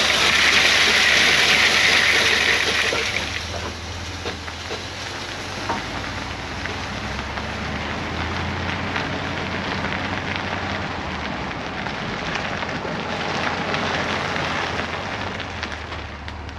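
Vehicle driving along a road: a steady hiss of tyre and road noise over a low engine hum, loudest in the first three seconds.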